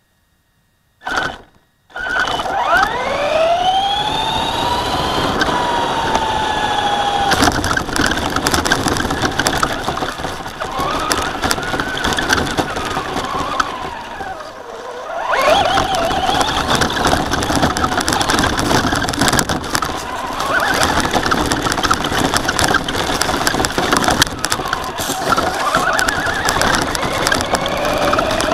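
Traxxas Slash RC short-course truck driving hard: its motor whines up and down in pitch with the throttle over a rough rattle of the tyres and chassis on asphalt and then grass. The whine sets in after a short knock about a second in, and fades briefly about halfway through.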